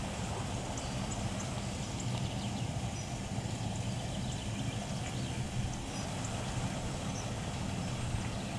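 Scattered faint, short bird chirps over a steady low hum that is the loudest sound throughout.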